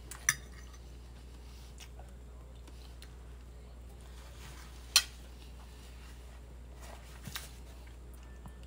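A fork clinking on a dinner plate: a sharp clink shortly after the start, a louder one halfway through, and two lighter taps close together near the end, over a steady low hum.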